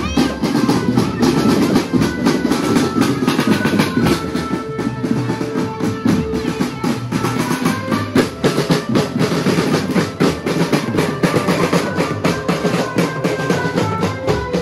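Music with drums struck in a dense, rapid stream of hits under a melody that steps from note to note.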